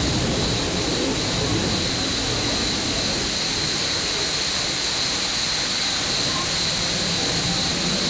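A waterfall pouring into a pool: a constant, even rush of water, with a steady high-pitched tone running over it.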